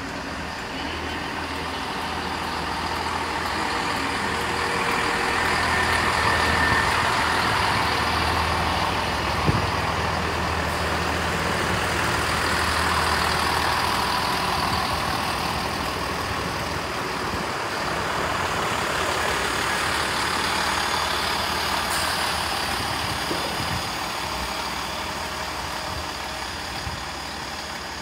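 A GWR Class 166 Turbo diesel multiple unit runs past along the platform with its diesel engines working, wheels rolling on the rails. The noise builds over the first several seconds, holds, then eases off near the end.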